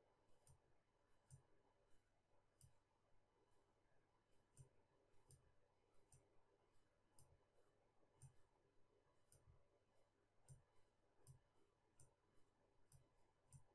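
Faint computer mouse clicks at irregular intervals, roughly one or two a second, as short brush strokes are drawn, over a low steady room hum.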